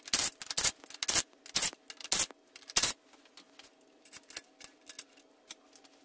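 A cordless power tool runs in short bursts, spinning out the rocker-shaft bolts on a Slant Six cylinder head. About three seconds in it gives way to lighter metallic clicks and clinks as the rocker shaft assembly is lifted off.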